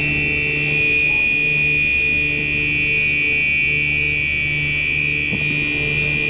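Gentex Commander 3 fire alarm horn sounding on continuous: a steady, shrill high tone, over a lower tone that pulses on and off about once a second.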